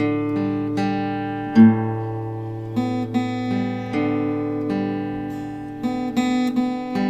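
Background music: acoustic guitar playing slow plucked chords and single notes, each ringing out before the next.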